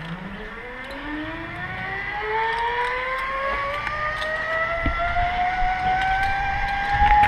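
Zip line trolley pulleys whining along the steel cable as a rider comes down the line, the pitch rising steadily and the sound growing louder as the trolley gathers speed.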